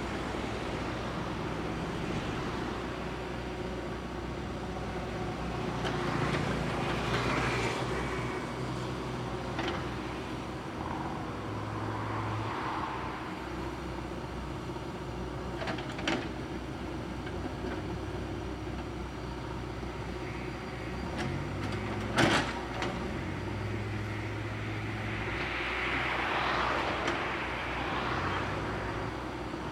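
JCB 3DX backhoe loader's diesel engine running under load, swelling louder several times as the machine works. Two sharp knocks, the louder one about two-thirds of the way through.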